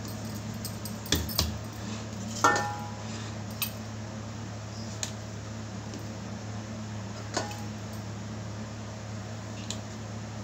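A few sharp knocks and taps of hands and a utensil against a wooden board, with one ringing metallic clink about two and a half seconds in, over a steady low hum.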